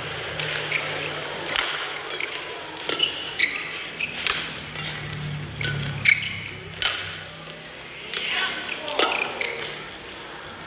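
Badminton rally: sharp pops of rackets striking the shuttlecock, about one a second, with short squeaks of court shoes on the floor and the echo of a large hall.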